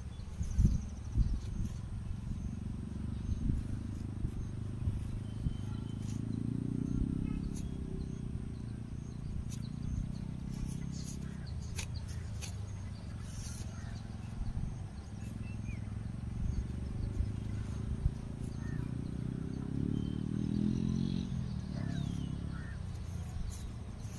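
Outdoor pasture ambience: a low steady rumble with faint bird chirps and a few light clicks. Twice a low pitched sound swells for a second or so.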